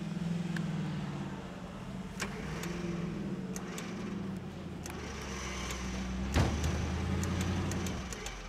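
Off-road rock-racing buggy engine running steadily, with scattered sharp clicks and one loud knock about six and a half seconds in.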